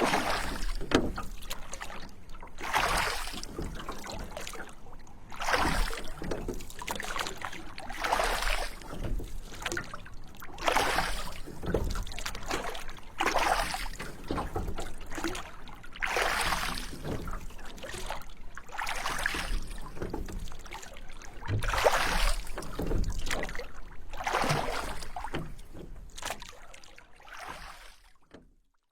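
Oar strokes of a small rowed boat or canoe pulling through water: a swishing splash about every two and a half to three seconds, with water lapping between strokes, fading out near the end.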